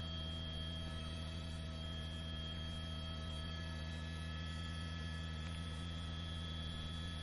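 A steady, unchanging hum with several constant thin tones above it.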